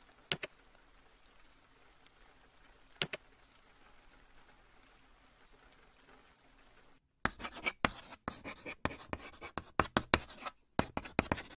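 Faint rain ambience with two single sharp ticks. About seven seconds in it cuts out, and a rapid run of scratchy scribbling sounds follows, a pencil-sketching sound effect, for the last few seconds.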